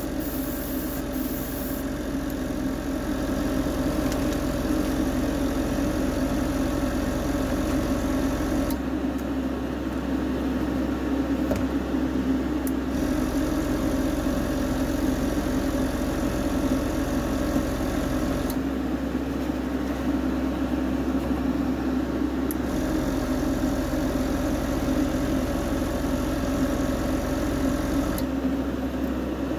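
Airbrush compressor and spray booth fan running with a steady hum, while an airbrush sprays paint with an even hiss. The hiss drops away for a few seconds three times, as the airbrush trigger is let off between passes.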